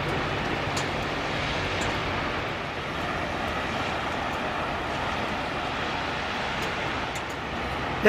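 Steady hum and hiss of city traffic, with a few faint clicks.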